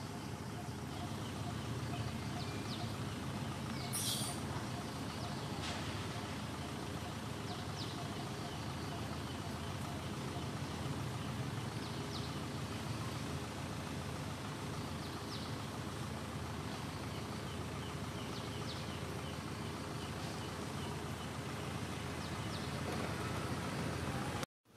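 Steady outdoor background noise, an even low rumble, with a few faint high chirps scattered through it and one brief sharp high sound about four seconds in. The sound cuts out for a moment just before the end.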